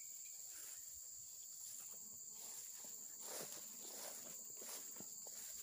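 Faint, steady, high-pitched drone of insects, with a few soft footsteps in grass.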